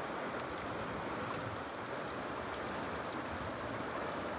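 Steady rushing of river current running over rocks, with a few faint splashes.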